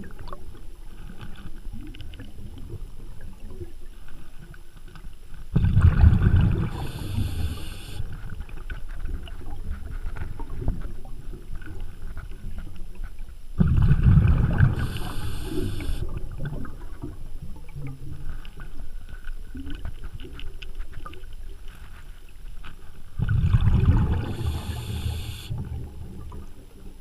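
Water noise around a small boat on a river, with a steady low rumble that swells louder three times.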